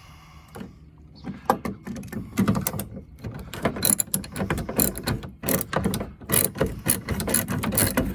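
Ratchet wrench clicking in quick runs, with small metallic clinks, as it backs off a loose 10 mm nut on a door-mirror mount. It starts about a second and a half in.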